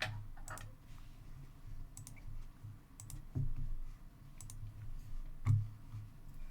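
Scattered, irregular clicks of a computer keyboard and mouse being used, over a low steady hum.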